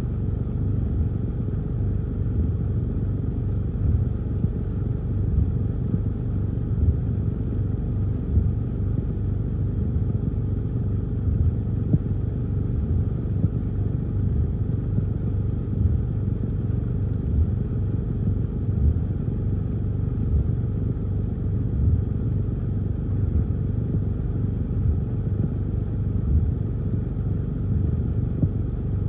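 Heavy rain and wind on a parked car, heard from inside the cabin as a steady low rumble with frequent short thumps.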